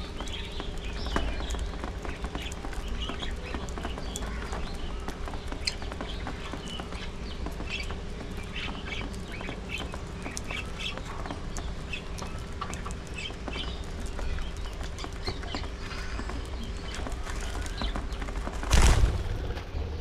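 Budgerigars chirping and chattering in short notes while they feed, with small clicks of seed being husked. About nineteen seconds in comes a loud, brief rush of wings as the flock flies off the feeding tray.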